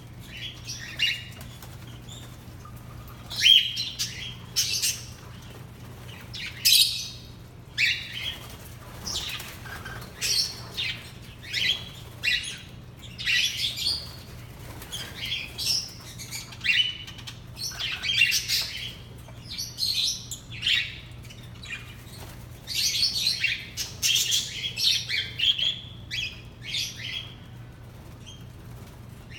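Aviary parrots chirping and calling in short, overlapping high-pitched bursts throughout, busiest in clusters. A steady low hum runs underneath.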